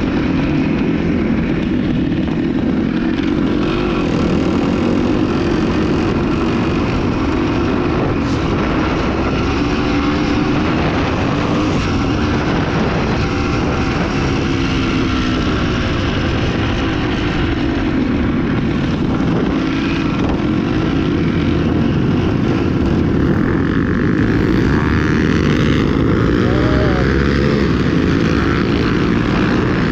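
Dirt bike engine running under way, its pitch rising and falling continuously as the throttle opens and closes.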